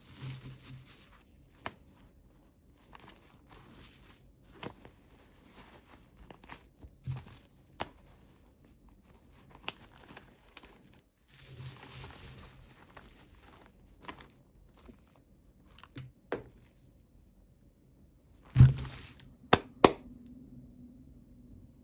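Toy packaging being handled and opened: plastic and paper crinkling and tearing, with scattered small clicks. Near the end come a few louder knocks in quick succession.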